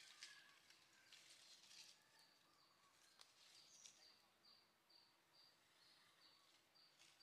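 Near silence: faint rustling in the first two seconds, then a faint short high chirp repeating about two or three times a second from about three seconds in.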